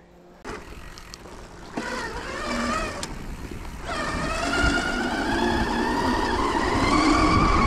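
CYC X1 Pro mid-drive electric motor on an e-bike accelerating from a standstill under throttle: a whine that is faint at first, grows much louder about four seconds in as power rises, and climbs slowly in pitch as speed builds. A low rumble runs underneath, with a sharp click about three seconds in.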